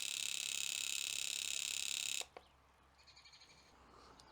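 Merkur XR4Ti fuel injector, driven by a pulse tester, spraying aerosol carb cleaner: a steady hiss that cuts off suddenly about two seconds in. It is followed by faint rapid pulsing.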